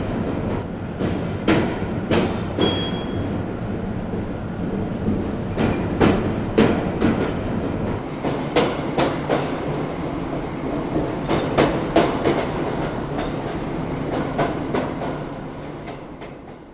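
Train running on rails: a steady rumble with repeated clacks of wheels over rail joints coming in clusters, fading out near the end.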